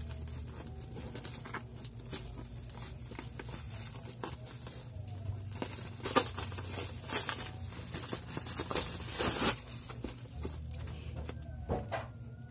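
Black plastic courier bag crinkling and tearing as it is pulled open and peeled off a bubble-wrapped parcel, in irregular rustling bursts that are loudest in the middle.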